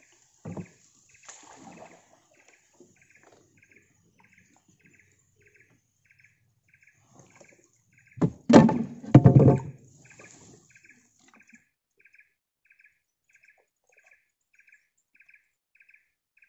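A bird repeats a short, high chirp over and over, about every half second, throughout. About eight seconds in, a loud clattering and splashing burst lasts roughly a second and a half, in two pulses.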